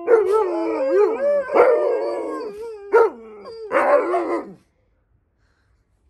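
Alaskan Malamutes howling and 'talking' in drawn-out calls that slide up and down in pitch, with voices overlapping at times. A short yelp-like call comes about three seconds in and a last howl about a second later, then the calls stop.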